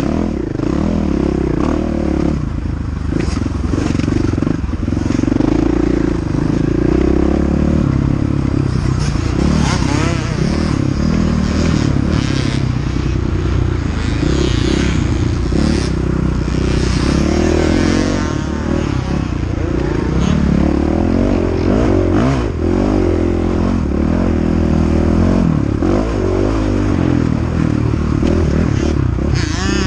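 KTM 500 EXC's single-cylinder four-stroke engine under hard riding, its revs rising and falling over and over as the throttle is worked.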